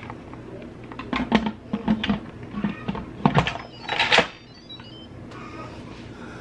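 Stainless steel Instant Pot lid set onto the pot and twisted shut: a run of clicks, clunks and scrapes, loudest about four seconds in as it locks, followed by a brief sequence of electronic tones.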